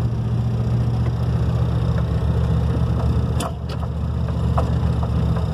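Vintage Ford F100 race truck's engine running at a steady drone, heard from inside the cab while driving. A few sharp knocks and rattles come through, the clearest about three and a half seconds in, where the level briefly dips.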